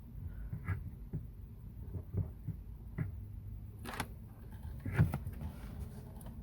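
A handful of light clicks and taps, about six spread out, the sharpest about four and five seconds in, from handling a multimeter's probes and a lanyard kill switch's wires.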